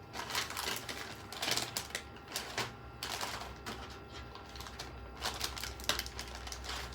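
Irregular rapid clicking and rattling of a PC case's hard parts being handled and fitted, with a few louder knocks.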